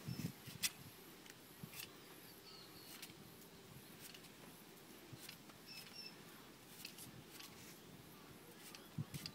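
Faint, irregular scraping clicks of a knife peeling the skin off a taro corm, with a small bird chirping twice in the background.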